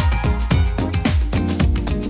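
Music with a steady drum beat, about four strikes a second, over a heavy bass line.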